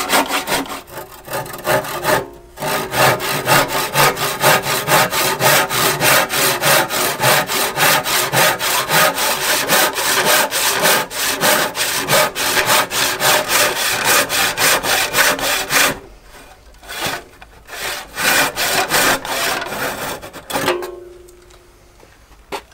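Wooden-handled handsaw cutting through a rough-sawn timber plank in steady, rapid back-and-forth strokes, with a short break about two seconds in. From about sixteen seconds the strokes become fewer and lighter as the cut is finished.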